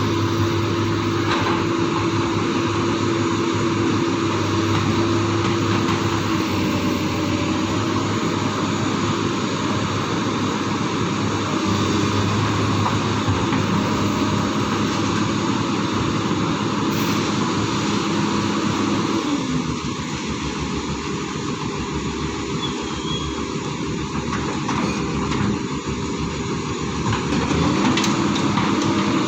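Excavator's diesel engine running steadily, its pitch shifting as the engine speed changes: it drops about two-thirds of the way through and rises again near the end.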